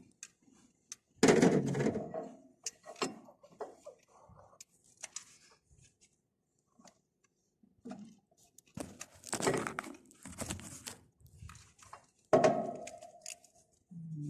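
Irregular metallic clanks, knocks and clicks of hand tools and metal parts during work on a bulldozer's oil cooler assembly, with one clank near the end that rings briefly.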